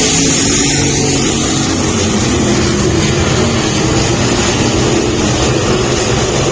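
Several race car engines running together on the track: a loud, steady drone made of overlapping engine tones.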